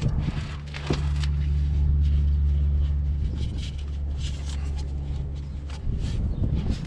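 A steady low mechanical hum that swells about a second in and eases off near the end, with scattered clicks and knocks over it.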